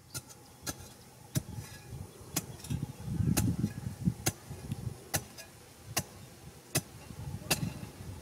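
A metal pipe jabbed repeatedly into hard, dry earth to dig a hole: sharp strikes about one and a half a second, with duller thuds and scraping of loosened soil between them.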